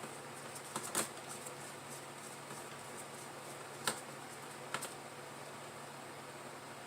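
A few scattered light, sharp clicks, the strongest about a second in and others near four and five seconds in, over a steady hiss with a faint hum.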